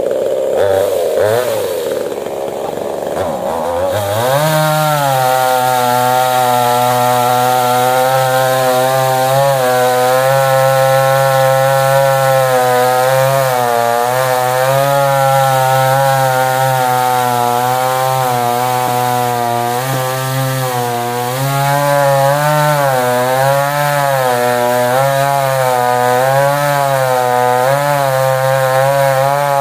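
Stihl MS 441 C two-stroke chainsaw running unevenly at lower speed, then revving up about four seconds in and held near full throttle. Its pitch wavers and dips again and again as the chain cuts into the fallen rambutan wood.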